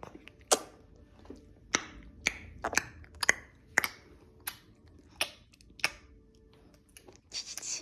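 Baby making a series of sharp mouth clicks and smacks, about ten of them, unevenly spaced, with a short breathy hiss near the end.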